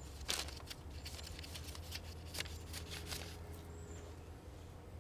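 Sharp knife trimming a raw brisket, shaving its edges round: a few short slicing and scraping sounds.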